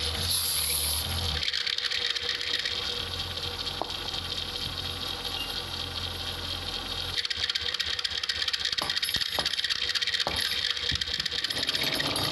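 Wood lathe running, with a steady low motor hum and the hiss of a tool cutting the spinning wood. The hum drops out about seven seconds in, and a few light knocks follow.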